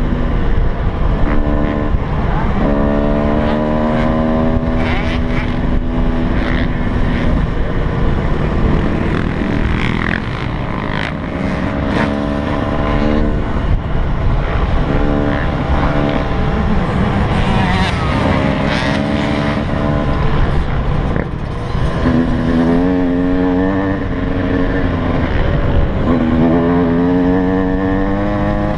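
Yamaha YZ125 two-stroke single-cylinder dirt bike engine revving up and easing off again and again as the bike rides along, with wind rumbling on the microphone.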